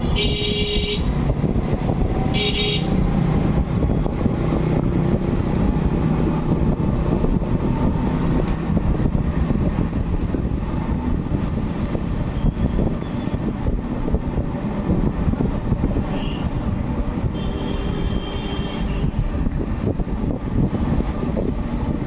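Steady road and wind rumble from riding in traffic, with short vehicle-horn toots at the start and again about two and a half seconds in, and a longer horn blast near the end.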